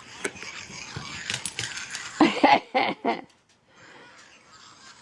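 Battery-powered puppy toy switched on, running with a mechanical clicking and rattling that stops abruptly about three seconds in.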